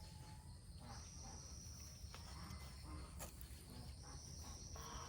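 Faint insects trilling: a steady high note that breaks off and starts again in stretches of a second or more, with a few soft clicks over a low rumble.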